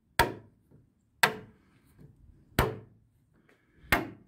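A small magnet snapping onto the steel lower door and cab panel of a 1948 Chevy 3100 pickup: four sharp clicks a little over a second apart. Each click is the magnet grabbing the metal, a sign of solid steel without thick body filler.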